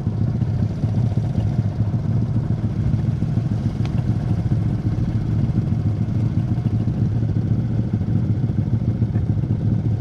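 Small motorcycle engine running steadily under way, at an even speed with no revving.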